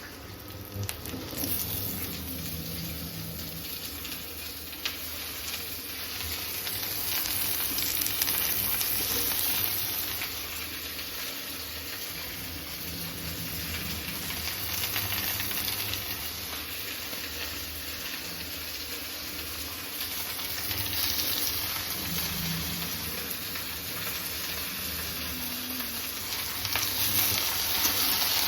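Chicken nuggets sizzling as they fry in hot oil: a steady crackling hiss that starts up about a second in and swells and eases slightly.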